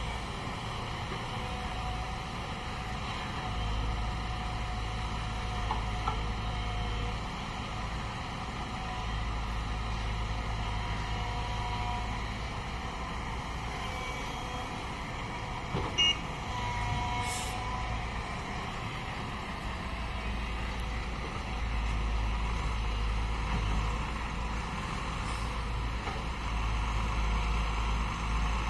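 Diesel engine of a JCB tracked excavator running under load as it digs and swings, its low rumble swelling and easing, with tipper trucks running nearby. A few brief beeping tones sound now and then, and there is one sharp knock about halfway through.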